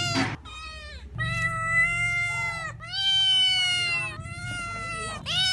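Domestic cat meowing repeatedly: about five drawn-out meows one after another, the longest over a second each.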